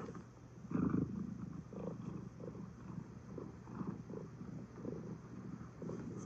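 Domestic cat purring in uneven pulses as its tail is played with.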